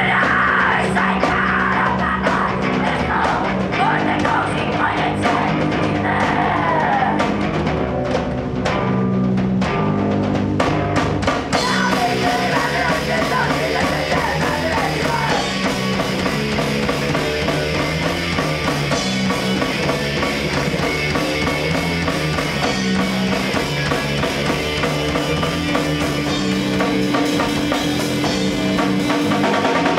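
Live heavy rock band playing: drum kit and electric guitars, with a woman singing into a microphone. The cymbals come in more fully about eleven seconds in.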